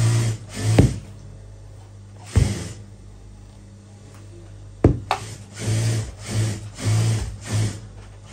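Steam iron pressing a fabric strip: short hisses of steam, about four in a row near the end, and three sharp knocks as the iron is set down on the board.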